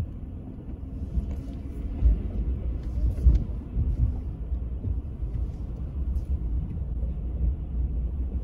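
Low rumble of a car driving slowly, heard from inside the car, with a couple of louder thumps about two and three seconds in.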